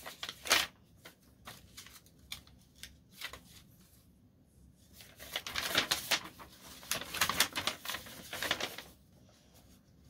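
Paper rustling and crinkling as a folded instruction sheet is handled and opened: scattered crackles at first, then a busier run of rustling from about halfway.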